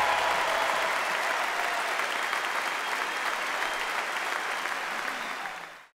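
A large audience applauding: dense, steady clapping that slowly weakens, then cuts off abruptly just before the end.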